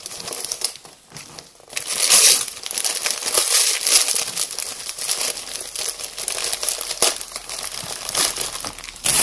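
Gift wrapping paper crinkling and rustling in irregular handfuls as a small wrapped box is unwrapped by hand, loudest about two seconds in.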